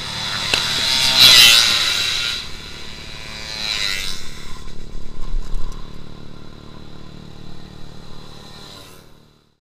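Yamaha NMAX scooter's single-cylinder engine, fitted with a leaky, loud exhaust, revving up about a second in and again near four seconds, then settling to a steadier run that fades out just before the end.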